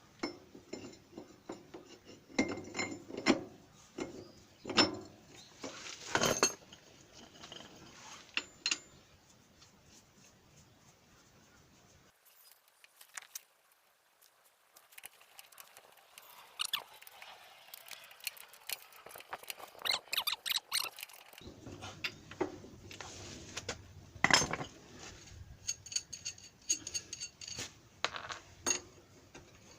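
Metal clinks, taps and knocks of tools and steel parts being handled as a homemade puller is fitted to a power tiller's wheel hub, irregular, with a few louder knocks.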